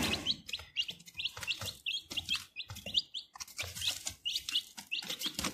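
Giriraja chicks peeping: many short, high chirps, several a second, with light taps in between.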